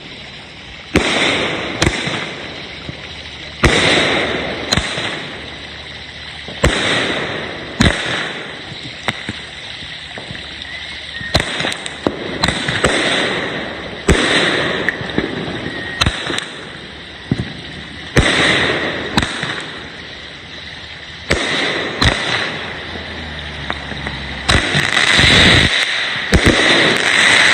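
Consumer aerial fireworks going off in a long series: sharp bangs about every one to two seconds, each trailed by crackling. The bangs come faster near the end.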